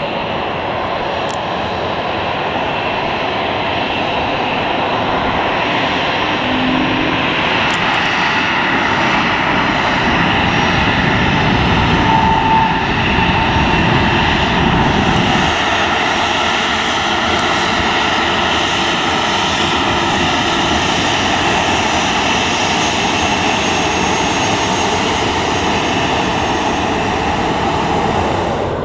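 Steady jet engine noise from airliners on the ground: an Airbus A321neo on the runway, then a Boeing 737-800 taxiing, its turbofans running with a continuous roar and a faint fan whine.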